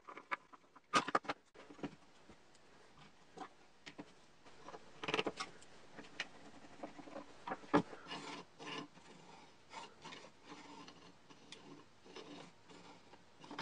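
Wooden lock parts being handled and worked: scattered light clicks and short bursts of wood scraping or rasping.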